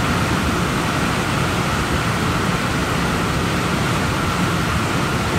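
The Mistaya River roaring as white water through a narrow rock slot canyon: a steady, loud rush of water.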